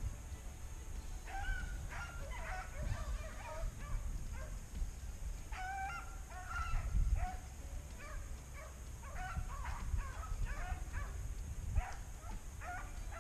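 Rabbit hounds baying as they run a cottontail on the scent, call after call in an irregular chorus with short breaks.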